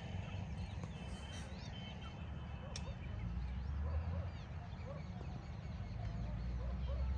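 Many birds calling, a steady scatter of short chirps and calls, over a low rumble that grows louder near the end.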